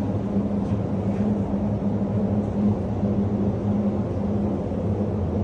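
A steady low mechanical drone with a constant hum, running unchanged throughout.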